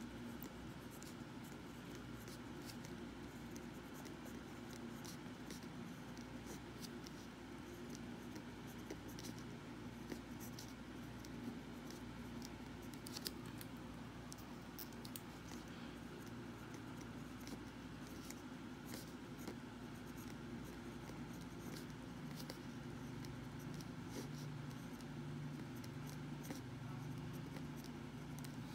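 Pen writing on paper: faint, irregular scratches and ticks of the pen tip as the working is written out, over a steady low hum.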